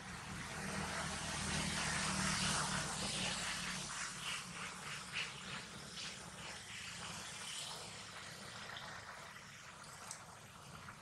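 Distant engine hum that swells about two seconds in and fades away, as of a vehicle passing, over steady outdoor hiss, with a few light rustling clicks in the middle.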